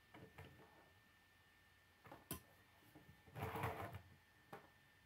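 Plastic K'nex pieces of a toy excavator model clicking and rattling faintly as it is handled: a few sharp clicks, with a short clatter about three and a half seconds in.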